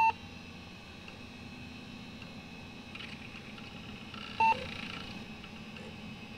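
Two short electronic beeps about four and a half seconds apart, over a faint steady hiss.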